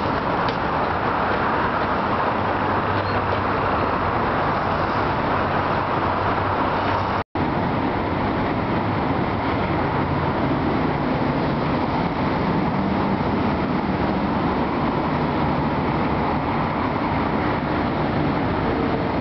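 Trams running on rails: a tram passing close by, then, after a short break in the sound, a Tatra T3 tram coming closer, with steady rail and running noise and a low motor hum.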